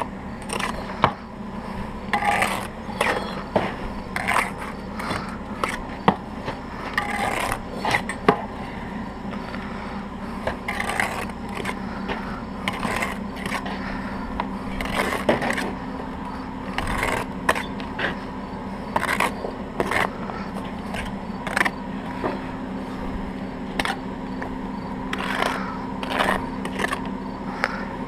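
Steel bricklaying trowel scraping and spreading mortar on brick and block, with irregular scrapes, clicks and taps as bricks are set into the mortar, over a steady low hum.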